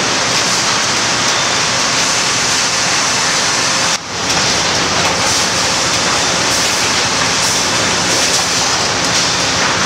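Sawmill machinery running steadily: chain transfers and roller conveyors carrying cants into a bull edger, a loud, dense, even noise. It dips briefly about four seconds in and comes straight back.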